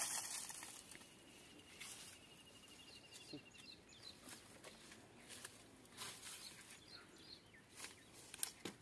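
Faint rustling and snapping of dry brush and twigs as someone moves through scrub, scattered light cracks every second or two. A faint rapid high trill runs for a few seconds near the start.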